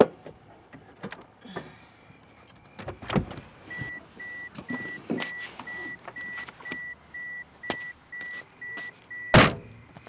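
A car door unlatches with a clunk. The car's door-open warning chime then beeps steadily, about three high beeps a second, until the door is slammed shut near the end, which cuts the chime off.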